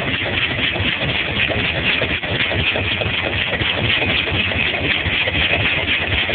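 1965 Cadillac's V8 idling steadily with a rapid, regular knock from the bottom end: a rod knock, a sign of a worn connecting-rod bearing.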